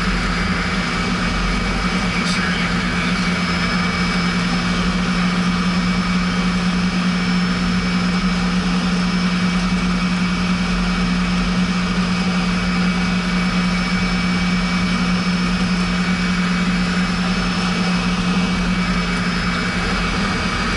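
Cessna Citation 501 business jet with its twin turbofan engines running steadily: a constant low drone with a steady high whine over a broad rush of airflow.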